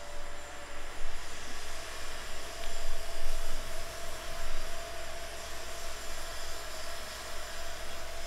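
Steady engine-like drone with a held mid-pitched whine over a low rumble, its loudness rising and falling irregularly.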